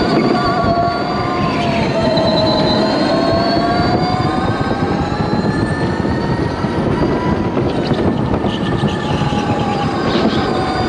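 Electric go-kart's motor whining under way, its pitch sinking and then slowly rising again as the speed changes, over a steady rush of rolling noise.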